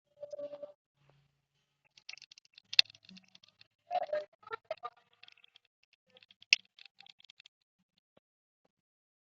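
Keyboard keys clicking in quick, irregular runs of typing, with a couple of short pitched sounds among them, one at the very start and one a few seconds in.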